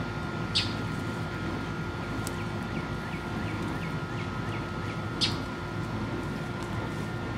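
Two brief crisp rustles of dry hay, about half a second in and about five seconds in, as a Holstein steer pulls at a hay pile. A bird chirps a quick run of short notes in the middle, over a steady low rumble.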